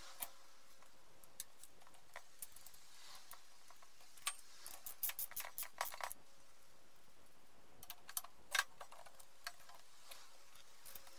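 Small metal clicks and taps as the top mount, washer and nut are fitted by hand onto the threaded shock rod of a coilover front strut. There is a quick run of clicks about four to six seconds in and another short cluster around eight seconds.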